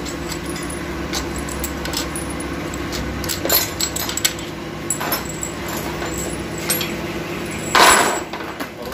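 Steel bolts clinking in a hand and tapping against an aluminium transmission case: scattered sharp clicks, then a louder clatter about eight seconds in, over a steady low hum.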